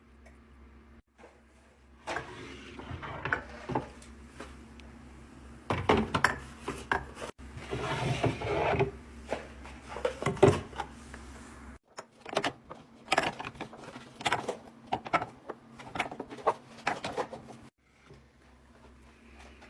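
Repeated knocks, clicks and rustling of food containers and packaging being handled, set down and put away, with a drawer or bin sliding.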